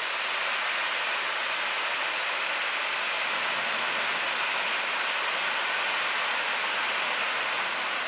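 Steam locomotive out of sight in the trees, giving off a steady rushing hiss of steam.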